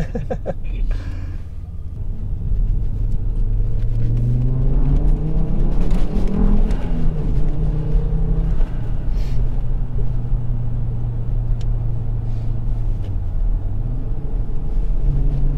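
Volvo S60R's turbocharged five-cylinder engine, modified with a downpipe, cold air intake and stage one tune, heard from inside the cabin as the car pulls away. The revs climb for a few seconds and then settle into a steady drone, dipping and rising again near the end.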